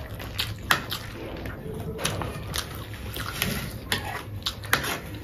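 People eating chatpate, a spiced puffed-rice snack: chewing and wet mouth sounds, with metal spoons scraping and clicking against paper plates in irregular short clicks.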